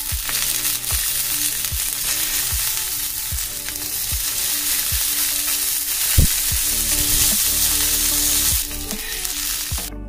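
Green chillies, garlic, peanuts and cumin sizzling loudly as they fry on a hot iron tawa, with one sharp knock about six seconds in. The sizzle drops off suddenly near the end.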